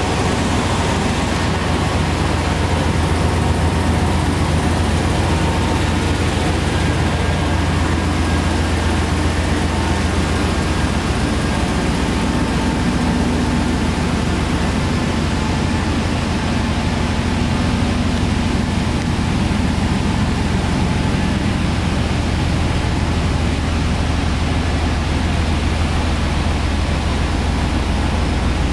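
The pickup's 5.7-litre V8 idling steadily: a constant low rumble with an even hiss over it.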